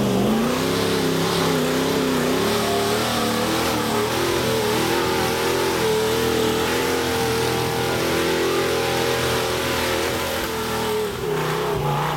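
Rock crawler's engine revving up and held at high revs while climbing a steep rock ledge, the pitch wavering as it works under load. It eases off briefly near the end.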